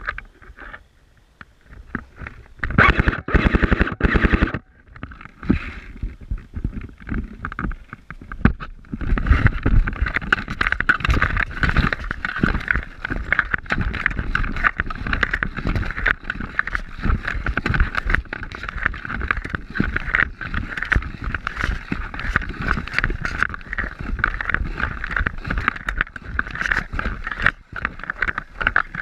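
Mesh fabric scraping and knocking against a body-worn camera and its microphone as the wearer moves, a dense run of rapid rubbing and bumping that sets in about a third of the way in.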